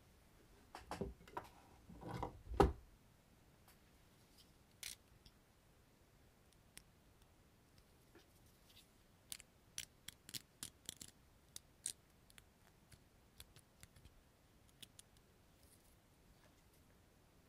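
Small objects handled close to the microphone: a few soft knocks and thumps in the first three seconds, then scattered sharp clicks and snaps, bunched together around the middle.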